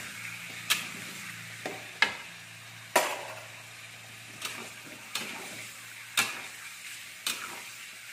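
Raw chicken pieces sizzling steadily as they are stir-fried in a stainless-steel wok. About eight sharp clanks of a metal spatula striking and scraping the pan, roughly one a second, are the loudest sounds.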